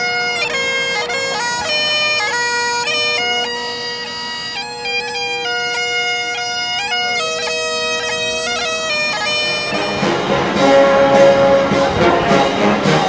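Bagpipes playing a tune, the chanter melody stepping between held notes over a steady drone. About ten seconds in the sound cuts suddenly to a band playing, with brass and a beat.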